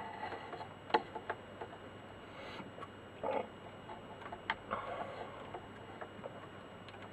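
Scattered small clicks and taps, with a few brief scraping rustles, from hands handling wires and small tools while connecting a lead for soldering.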